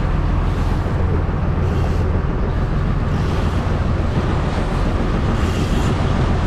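Fishing boat's engine running steadily with a low hum, under a constant rush of wind and water.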